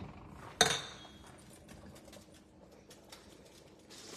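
A single sharp metallic clink of a kitchen utensil against cookware, ringing briefly, about half a second in, followed by faint scattered small clicks.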